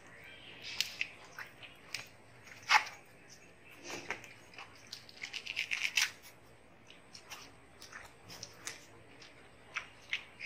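Watermelon eating: wet, crisp crunches and clicks of biting into and chewing juicy watermelon slices. There is a louder crack about three seconds in and a quick run of crackles around six seconds in, as a slice is torn apart by hand.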